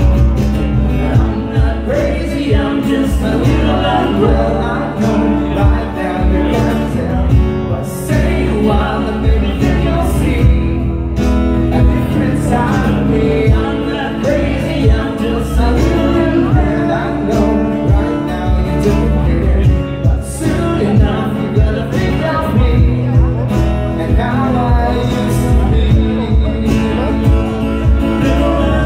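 Live band with a male vocalist singing over two strummed acoustic guitars and percussion keeping a steady beat, a mid-tempo pop-rock song.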